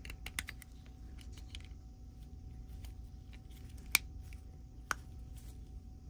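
Light plastic clicks and rattles as a small clear plastic case is opened and a USB dongle is handled: a quick cluster of clicks in the first second and a half, then two sharper clicks about a second apart near the middle, over a low steady hum.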